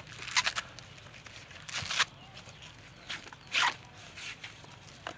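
Husks being pulled and torn off an ear of sweet corn by hand: about five short ripping rustles, a second or so apart.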